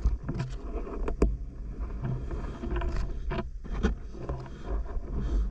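Underwater sound heard through a diving camera's housing as a freediver moves through weed: a steady low rumble with a handful of sharp clicks and knocks, the loudest about a second in.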